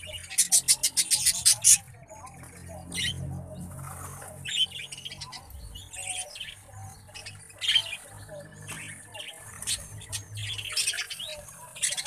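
Aviary birds, budgerigars among them, chirping and squawking: a fast, loud run of high chirps in the first two seconds, then scattered single chirps and calls.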